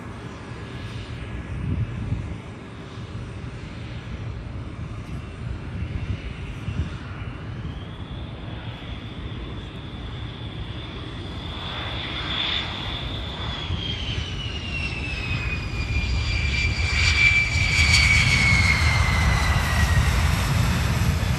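Boeing F-15QA fighter's twin jet engines running and growing louder, with a high turbine whine that climbs a little, holds, then slides down in pitch over several seconds near the end.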